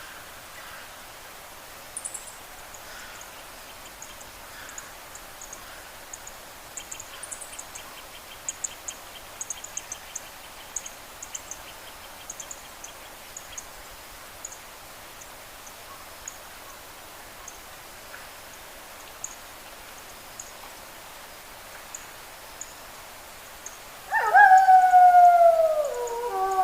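A steady hiss with faint, scattered high chirps and a quick ticking trill in the middle. Near the end a wolf howls loudly, the call starting high and sliding down in pitch, then a second, steadier howl begins.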